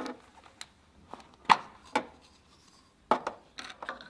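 Handling noise from the intake filter housing of a BAUER Junior II compressor as the cap comes off and the filter cartridge is pulled out: several sharp clicks and knocks with some rubbing, the loudest about a second and a half in and another few near the end.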